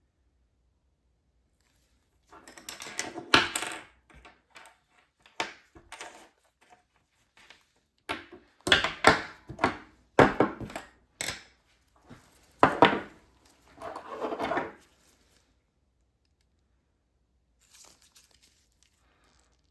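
Orthodontic pliers and thin stainless steel wire being handled as the wire is marked and bent: a run of sharp metallic clicks, taps and short rustles starting about two seconds in, with a few faint ones near the end.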